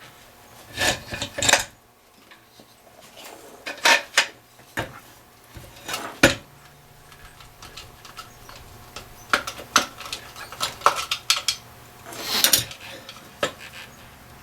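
Metal router parts and hand tools clinking and clattering as they are handled and set down, in irregular knocks and short rattles.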